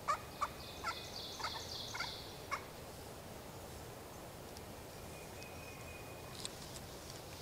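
Turkey calling in the woods: a series of short falling notes, about two a second, over the first two and a half seconds, then quiet.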